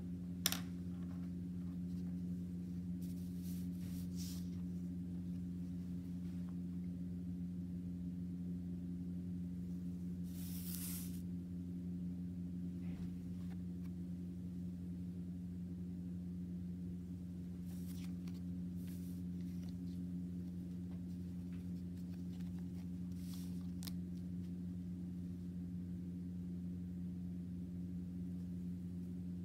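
A steady low hum, with a sharp click about half a second in and a few brief, faint rustles of paper cards and a ruler being handled on a tabletop.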